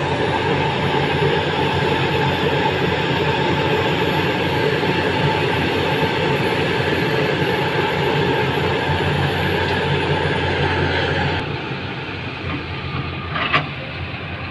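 SANY hydraulic excavator's diesel engine and hydraulics working hard while the bucket digs and lifts a load of earth, heard from inside the cab, with a faint high whine over the steady noise. About eleven seconds in the load eases and the noise drops, and a single short knock follows near the end.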